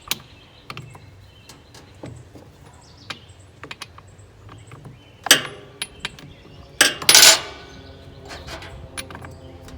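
Small metal clicks and clinks as a chainsaw's bar is taken off, with a sharp clank about five seconds in and a louder metallic rattle around seven seconds.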